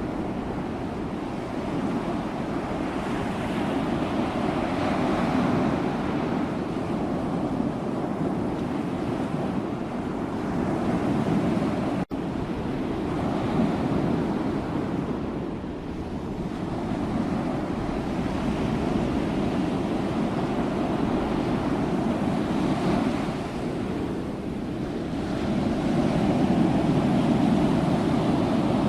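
Sea waves washing onto a shore, the surf swelling and ebbing every several seconds, with a momentary cut in the sound about twelve seconds in.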